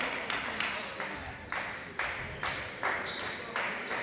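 Sharp, evenly spaced impacts, about two to three a second, ringing in a gymnasium's echo.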